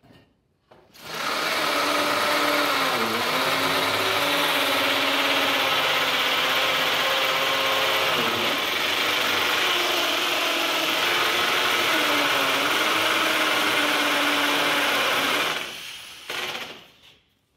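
Bosch GSB 550 RE corded impact drill boring a hole into a wall. It runs steadily for about fourteen seconds, and its motor pitch dips three times as it slows under the load of drilling. It then stops, with a short burst just after.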